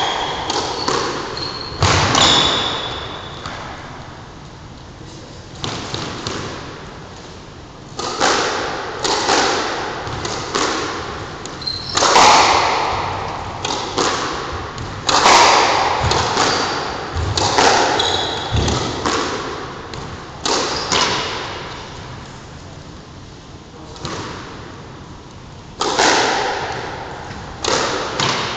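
A squash ball being struck by rackets and smacking off the walls of a squash court in a series of sharp hits that ring in the reverberant court, coming in quick runs during rallies with pauses between them.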